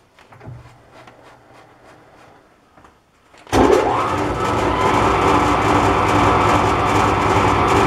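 Metal lathe switched on about three and a half seconds in, spinning up quickly and then running steadily with a mechanical whine. Before that, only a few light handling clicks.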